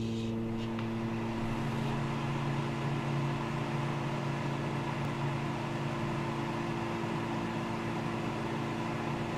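Microwave oven running: a steady electrical hum with a low buzz and fan noise, unchanging throughout.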